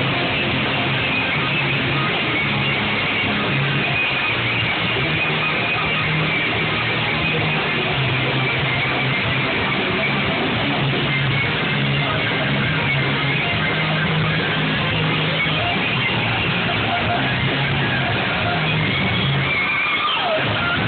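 Rock band playing through a PA during a sound check: steady, strummed electric guitar over bass.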